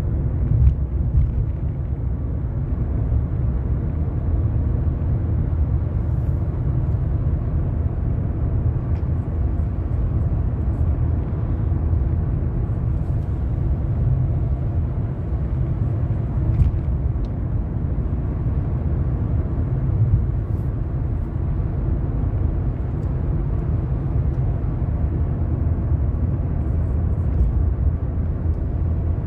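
Steady low rumble of a car driving, its engine and tyre noise heard from inside the car, with a few faint ticks.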